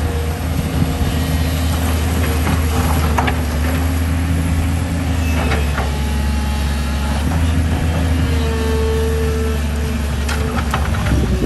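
Excavator diesel engine running steadily, with a high whine coming and going as the hydraulics work and a few sharp knocks.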